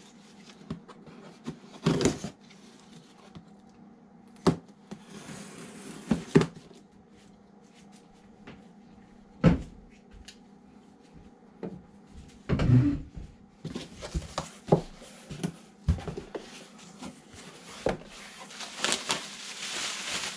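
Taped cardboard shipping box being cut and opened by hand: scattered knocks and taps of the box and hands, with stretches of scraping and rustling about a third of the way in and again toward the end as the flaps come open.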